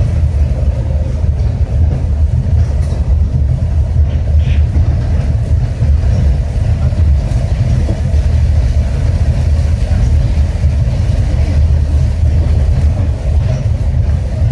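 Cabin noise of a Yurikamome rubber-tyred automated guideway train running along its elevated concrete track: a steady, loud low rumble with a fainter hum above it.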